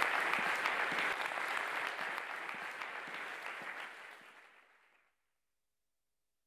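Audience applauding, fading away and gone about five seconds in.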